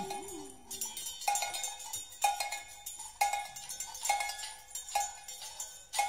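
Cowbell struck in a slow, even pulse about once a second, each hit ringing briefly at the same pitch, in a sparse break of a 1979 jazz quartet recording. A held low note slides down and fades out just as the strikes begin.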